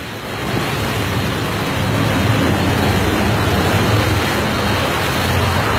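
Loud, steady rushing of wind on the microphone and waves around a boat, with a low hum underneath.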